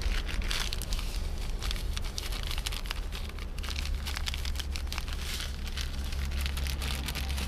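Food sizzling and crackling in a hot pan: a dense, irregular spatter of small crackles, over a steady low rumble.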